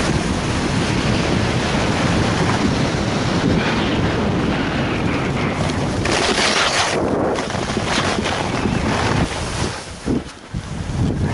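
Wind buffeting the microphone during a fast downhill run on snow, over a steady hiss of sliding on the snow. About six seconds in comes a louder, sharper hiss as a turn cuts through chopped-up snow, and the noise dips briefly near the end.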